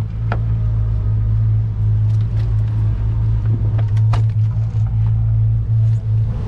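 Boat engines running with a steady low drone, and a few light knocks on the deck.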